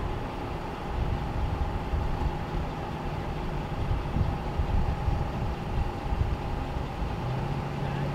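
Street ambience: a steady low rumble of vehicle engines idling, with a faint constant hum and a lower engine drone coming in near the end.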